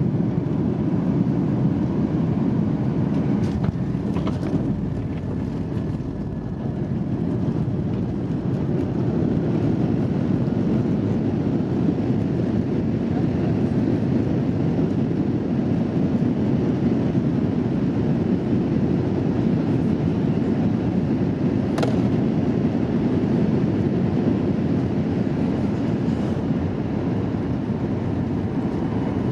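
Steady low rumble inside the cabin of a Boeing 737-800 during its landing roll, from the CFM56-7B turbofans and the wheels running on the runway with the spoilers up. A couple of brief clicks are heard, one a few seconds in and one about two-thirds of the way through.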